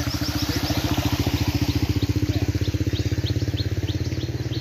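Small motorcycle engine running close by with a steady, rapid putter, loudest about two seconds in and easing slightly after. Faint high chirps repeat above it.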